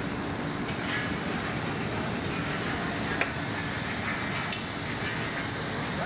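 Industrial bubble-type leafy vegetable washing machine running: a steady mechanical hum mixed with the rush of aerated, circulating water, with two short clicks about three and four and a half seconds in.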